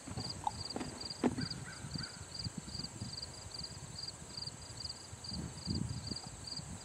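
Horse nosing a plastic bucket on sand: a couple of sharp knocks about a second in and low scuffing sounds, over a steady high chirping that repeats about three times a second in the background.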